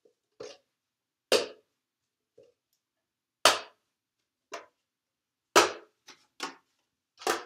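Plastic party cups set down upside down on a wooden table one at a time. There are four sharp knocks about two seconds apart, with lighter clicks and taps from handling the cups between them.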